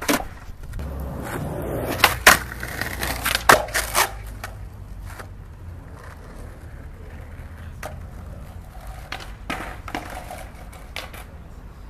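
Skateboard wheels rolling over concrete with a low rumble, and the board clacking sharply several times in the first four seconds. After that the rolling fades and a few lighter clacks follow.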